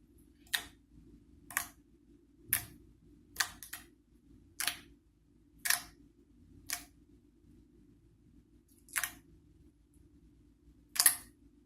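Homemade slime being poked and squeezed by hand, giving short clicky pops about once a second, around ten in all, with a longer pause near the middle.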